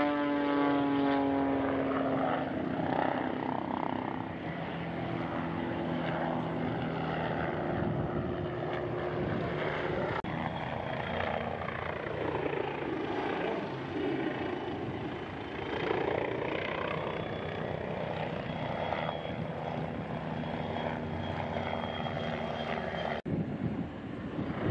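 Engine and propeller of an aerobatic display aircraft droning overhead. Its pitch falls as it passes right at the start. The sound changes abruptly twice, about ten seconds in and near the end.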